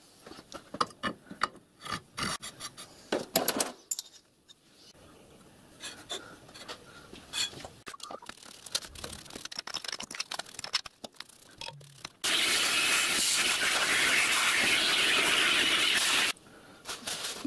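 Scattered clicks, rubs and scrapes of metal tools and parts being handled at a metal-turning lathe. About 12 seconds in, a loud, steady rushing noise starts suddenly, lasts about four seconds, then cuts off suddenly.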